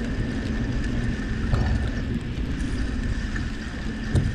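3-inch tyres of a Surly Krampus bike rolling through snow on a road: a steady rumbling hiss, with a short knock about a second and a half in and another near the end.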